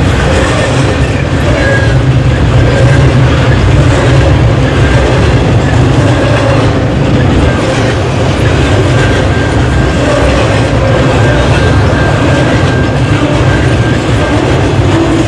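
Double-stack intermodal freight train's well cars rolling steadily past at close range: a loud, continuous rumble of steel wheels on rail with clickety-clack over the joints. The recording is equalized with heavy added bass.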